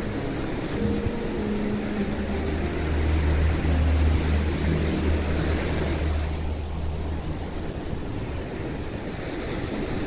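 Small waves washing up onto a sandy beach, a steady hiss of surf, with a deep rumble from about two seconds in to about eight. The surf hiss thins about six seconds in.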